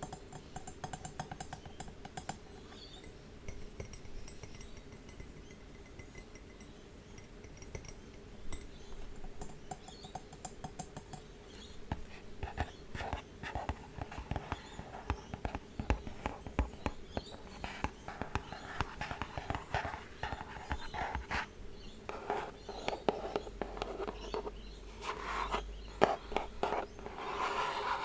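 Fingers tapping and scratching on small objects, giving many quick clicks and taps with scratchy rustling, sparse at first and busier and louder in the second half.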